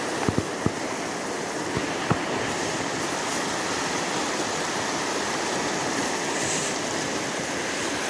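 Snowmelt-swollen river rushing steadily over rapids, a continuous wash of moving water. A few light clicks in the first two seconds.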